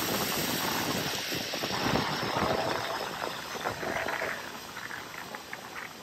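Water rushing and splashing in a steady stream, growing somewhat fainter in the second half.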